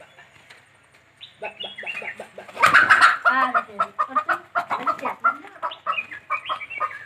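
Chicken squawking and clucking over and over, with a loud flurry of wing flapping about two and a half seconds in.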